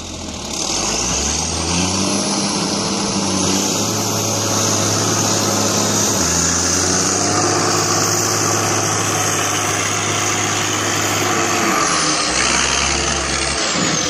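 John Deere 540E skidder's diesel engine running, revving up about half a second in and then running steadily at higher speed, with a high whine above the engine note. The engine note shifts near the end.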